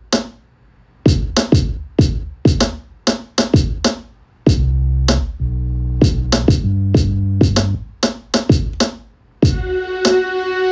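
Electronic background music: a beat of sharp percussive hits, with a deep synth bass line stepping through notes for a few seconds in the middle.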